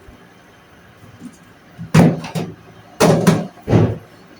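A few knocks and thuds, about two seconds in and twice more near the end, as a kitchen door is opened and shut.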